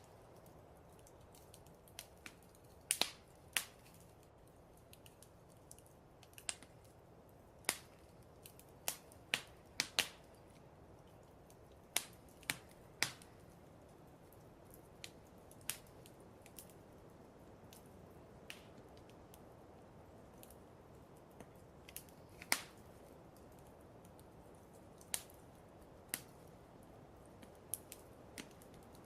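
Wood fire crackling: irregular sharp pops and snaps over a steady low hiss.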